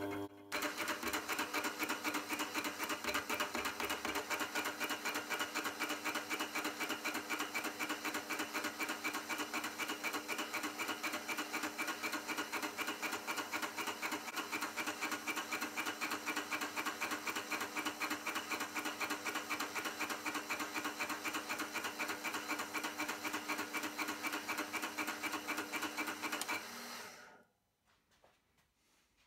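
Watchmaker's lathe spinning a stainless watch case against an abrasive sanding drum: a steady grinding rub with a fast, regular pulse, refinishing the case's grain. It dies away about a second before the end.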